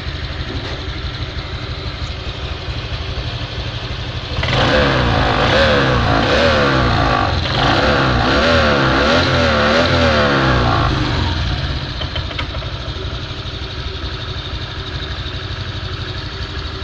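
Honda Vario 125 scooter's single-cylinder engine idling, then revved in repeated throttle blips from about four seconds in, its pitch rising and falling for some six seconds before it settles back to idle. The fault at issue is a rough, snoring noise ('ngorok'), which the owner traces to the air-filter box rather than the CVT.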